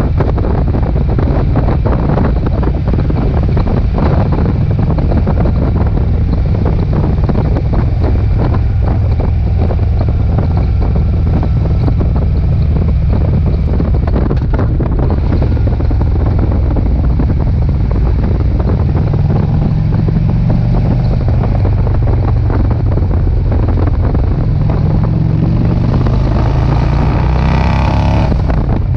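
Heavy wind rushing over the microphone at road speed, with a Harley-Davidson V-twin touring motorcycle running beneath it. Near the end a pitched sound climbs in pitch for a couple of seconds.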